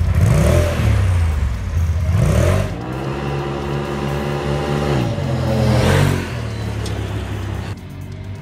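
Polaris RZR XP 1000 Turbo's turbocharged twin-cylinder engine on its stock exhaust, revved in quick blips. It then holds a long, steady pull that falls away about six seconds in as the throttle closes, and runs on at a lower note.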